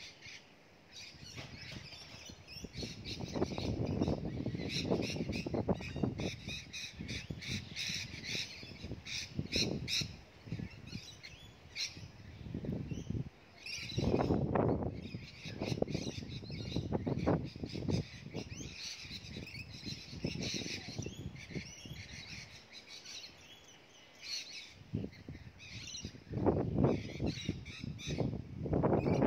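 Birds calling in the background, among them crows cawing. Under them come intermittent scraping and rustling from hands working food in a bowl and on plastic cling wrap.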